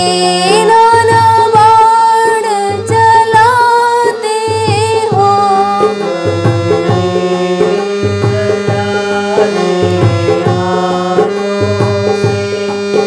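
Harmonium playing a bhajan melody in steady held notes over a repeating hand-drum rhythm. For the first five seconds or so a sliding, wavering melodic line, most likely a singing voice, runs over it; after that the harmonium carries the tune alone with the drum.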